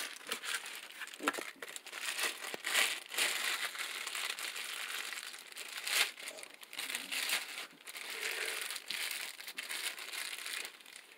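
Clear plastic bag crinkling and rustling as hands work it around a bicycle handlebar grip, with a few sharper crackles.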